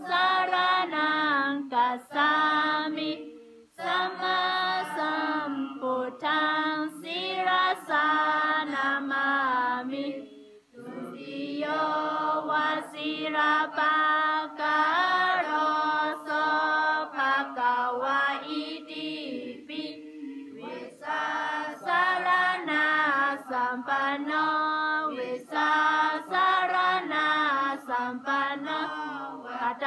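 A group of voices chanting a Pali prayer together in unison, in a sing-song melody on held notes, with brief breaks about four and eleven seconds in.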